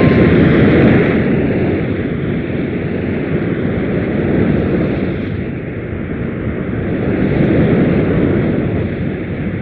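A steady rushing rumble that swells and eases every few seconds.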